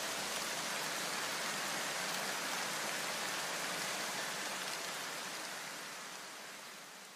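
Steady rushing noise of the Chinma waterfall and its river, fading out over the last two seconds.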